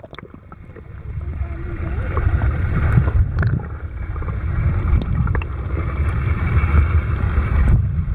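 Wind buffeting the microphone, an unsteady low rumble that builds after the first second, over a steady hiss of flowing water.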